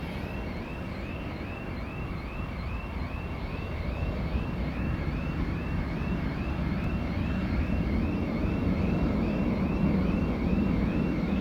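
Jet airliner's engines at takeoff power rumbling as it climbs away, the low rumble growing steadily louder. A high chirp repeats about twice a second over it.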